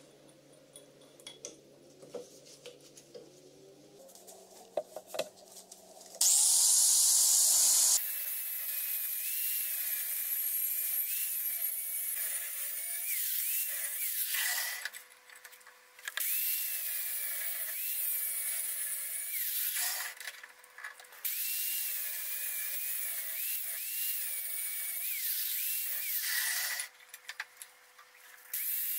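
Angle grinder with a thin cutoff disc cutting through a steel pipe clamped in a vise. After a few quiet seconds, a brief burst about six seconds in is the loudest moment. The grinder then cuts in stretches of several seconds, with three short pauses, and its high whine wavers and dips as the disc bites into the metal.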